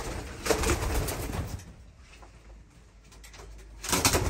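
Domestic pigeons cooing in a loft, with rustling and scuffling at the start and again about four seconds in, and a quieter stretch between.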